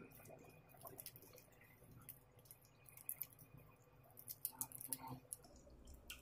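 Near silence with faint eating sounds: scattered small clicks and soft wet smacks from fingers picking at corn and shellfish, a little busier about four to five seconds in.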